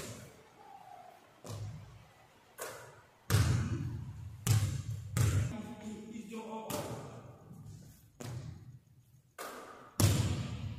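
Basketball bouncing on a hardwood gym floor: a string of irregularly spaced thuds, each echoing in the large hall.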